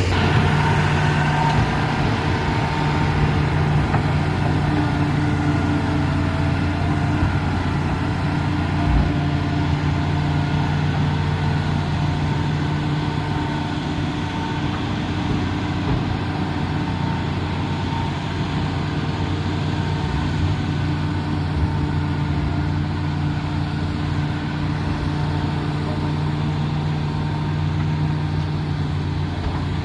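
Heavy earthmoving machine's diesel engine running steadily at a constant speed, with a brief knock about nine seconds in.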